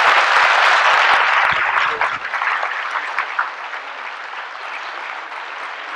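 Large audience applauding, loudest for the first two seconds and then easing off to a steadier, softer clapping.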